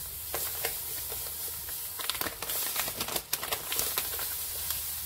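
Fine semolina pouring from a plastic bag into a large plastic bowl: a steady grainy hiss, with crackles and clicks that grow denser from about two seconds in.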